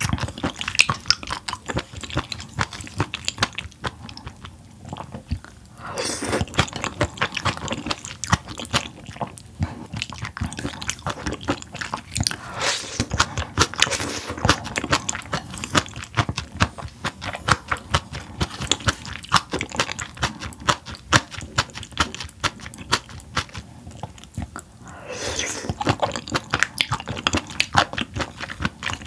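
A person chewing and biting seafood close to the microphone, with dense, quick wet mouth clicks and smacks, pausing briefly a few times.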